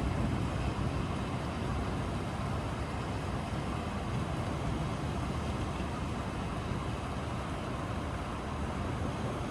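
Steady rain, with a low thunder rumble dying away in the first second.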